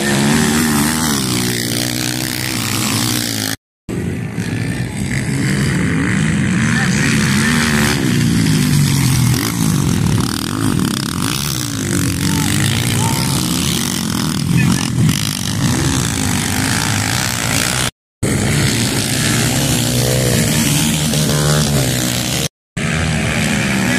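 Dirt bike engines racing, repeatedly revving up and dropping back through the gears as the bikes pass, in short stretches cut together with three brief dropouts.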